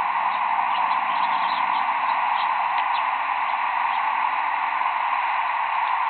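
Flight calls of a small flock of migrating birds passing overhead: a dozen or so short, faint, high chips scattered over the first four seconds, above a steady hiss.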